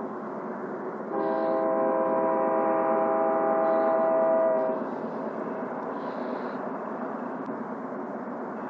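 Diesel freight locomotive's multi-chime air horn sounding one long blast of about four seconds, starting about a second in, over steady background noise.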